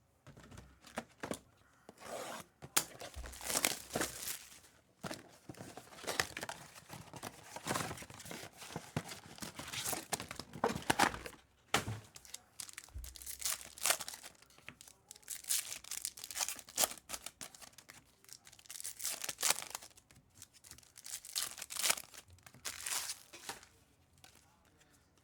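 Trading-card pack wrappers being torn open and crinkled by hand, in repeated irregular bursts of tearing and rustling.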